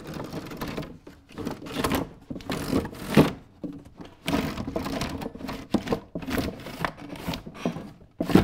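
Wooden sash window being handled in its frame: irregular knocks, taps and rubbing of wood on wood, with the sharpest knock about three seconds in.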